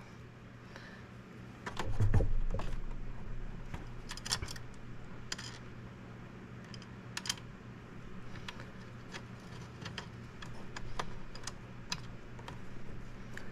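Scattered small clicks and taps of a screwdriver and screws being fitted and turned into the printer's metal frame, with a duller knock about two seconds in.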